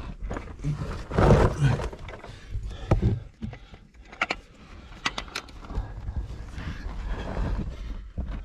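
A person crawling and scrambling through a tight lava-tube cave: irregular scuffing and scraping against the rock, with effortful breaths and grunts. There are a few sharp knocks of gear on rock a few seconds in.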